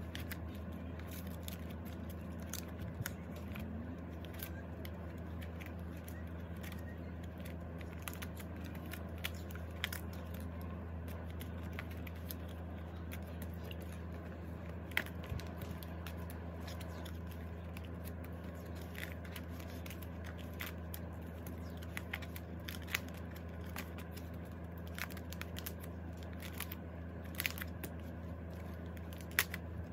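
Plastic binder sleeves crinkling and clicking as the pages of a ring binder are turned and handled, with scattered short sharp clicks over a steady low hum.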